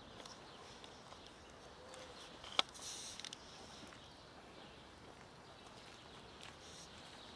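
Cats eating from small plastic food tubs, faint chewing and small ticks against quiet outdoor background, with one sharp click about two and a half seconds in.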